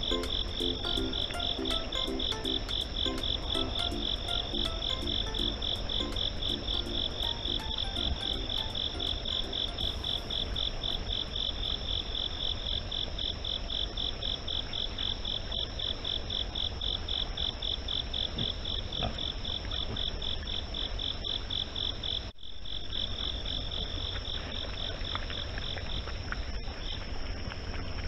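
Night chorus of crickets and other insects: a rapid, steady pulsing trill with a continuous higher tone above it, over a low hum. The sound drops out briefly about three-quarters of the way through, then the trill continues more faintly.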